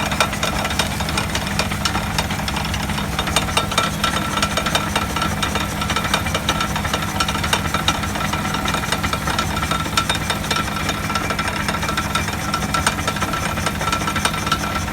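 Vehicle wheel hub bearing heard through an electronic mechanic's stethoscope, a steady rough noise of dense rapid clicking over a steady hum: the abnormal noise of a worn hub bearing.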